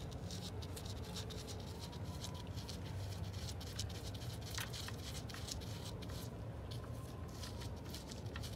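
Oil drain plug being unscrewed by gloved fingers from a warm oil pan: a scattered string of small ticks and scrapes, one sharper click about halfway through, over a steady low hum.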